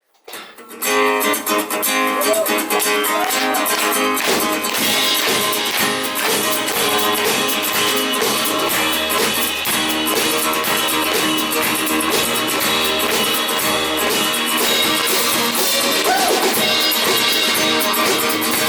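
A live band plays an instrumental intro on acoustic guitar with drums, starting about a second in.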